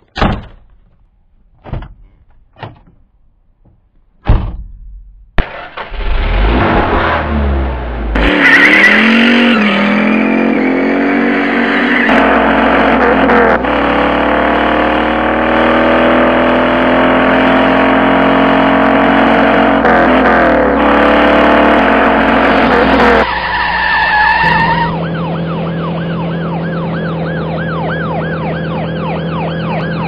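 A few sharp clunks, then a car engine starts about five seconds in, revs and runs as the car pulls away, its pitch climbing slowly. In the last five seconds a police siren in fast yelp mode comes in over the engine, warbling about three times a second.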